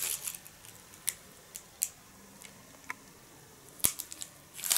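Scattered light clicks and crackles from a cellophane-wrapped plastic tray being handled. The sharpest click comes a little under four seconds in, and the cellophane starts crinkling more densely near the end.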